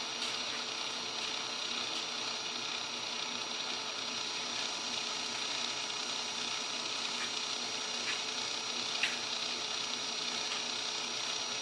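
Drill bit grinding slowly into a thumbnail: a steady, faint grinding hiss with a couple of tiny clicks. The hole is being bored to let out blood trapped under the nail.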